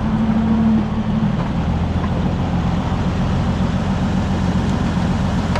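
Oliver 77 tractor's six-cylinder engine running steadily at a low speed, warming up after a hard start. Its note drops slightly a little over a second in, then holds even.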